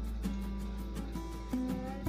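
Background instrumental music, held notes changing every half second or so over a steady low hum.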